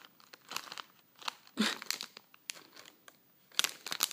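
Foil bag of Japanese fish-shaped gummy candies crinkling in short bursts as it is handled and shaken.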